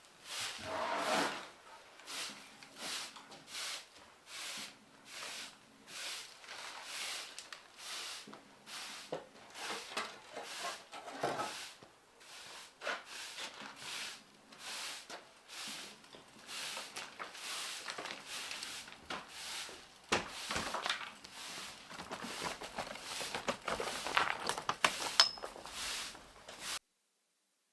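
Repeated scraping or rubbing strokes, roughly one to two a second, of a hand tool worked back and forth on a surface; cuts off suddenly near the end.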